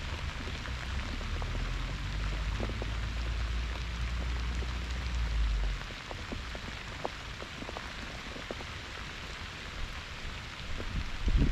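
Heavy rain falling steadily, a dense hiss full of small drop ticks. A low rumble runs underneath and cuts off about six seconds in.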